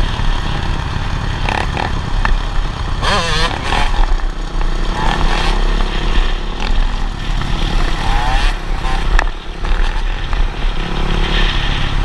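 Several dirt bike engines running at road speed, with a heavy steady rumble of wind on the microphone; engine notes rise and fall a few times as riders rev.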